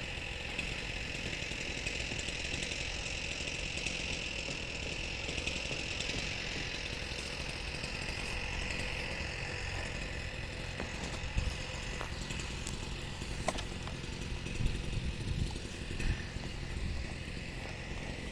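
Stihl MS170 chainsaw's small two-stroke engine running steadily, with a few sharp knocks in the second half.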